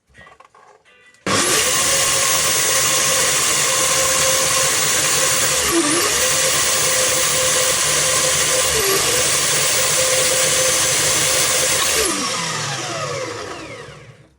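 Parkside bandsaw switched on and cutting through a metal part, running loud and steady with a hum and a hiss. The motor's pitch dips briefly twice as the blade loads. About twelve seconds in it is switched off and spins down with a falling whine.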